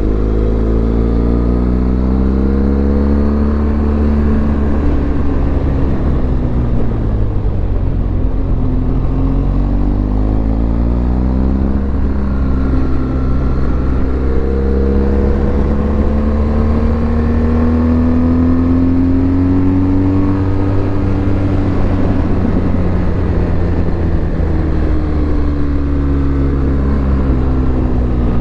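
BMW R1200GS motorcycle's flat-twin boxer engine running under way, its pitch climbing as it accelerates and falling as the throttle eases, twice over, with a steady low rumble beneath.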